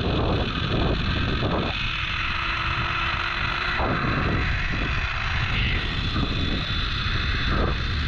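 Zipline trolley rolling steadily along the steel cable during a ride, with wind blowing on the microphone.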